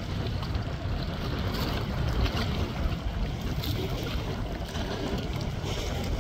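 Wind buffeting the microphone: an uneven low rumble with a steady hiss over it.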